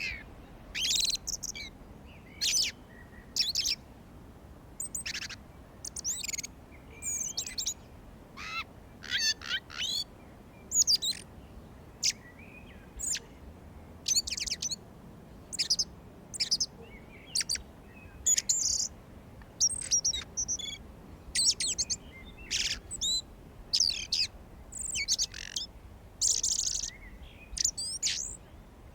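Several songbirds singing and chirping in spring, short high-pitched phrases and chirps following one another every second or so over a faint background hiss.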